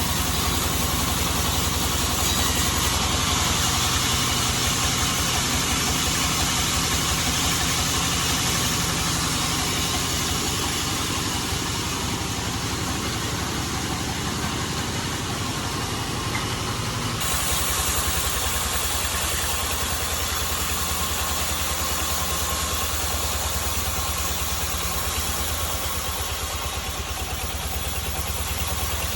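Sawmill band saw rig running steadily while sawing a teak log, with a low, even engine-like beat under a hiss. About two-thirds of the way through, the upper hiss falls away and the beat changes.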